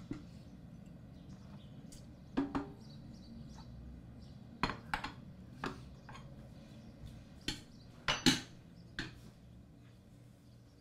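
Crockery clinking: mugs and bowls being set down and gathered onto a tray on a kitchen counter, a scattered series of separate clinks and knocks, the loudest about eight seconds in.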